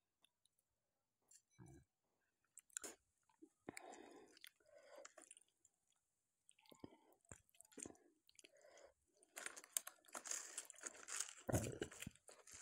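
Close-miked fingers mashing and mixing food on a plate: a few soft scattered clicks at first, then from about nine seconds in dense, louder crackling and squishing as fried dried red chillies and bharta are crushed into rice by hand.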